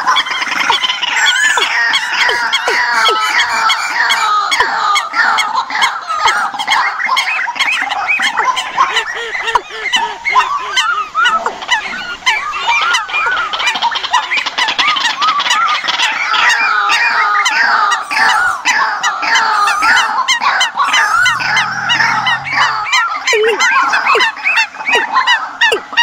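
Played-back bird lure recording: a dense, unbroken chorus of many overlapping bird calls, short repeated notes that bend in pitch.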